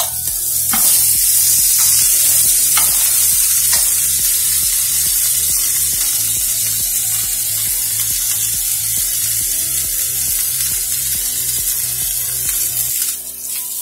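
Spice-coated Gobindobhog rice sizzling as it is fried in ghee and oil and stirred in the pan, with a few sharp spatula knocks in the first seconds. A low rumble runs underneath and stops near the end.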